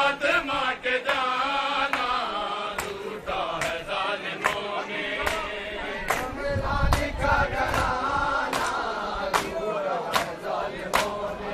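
A crowd of men chanting a lament in unison, with sharp hand slaps on bare chests (matam) falling at a fairly steady beat of roughly one a second.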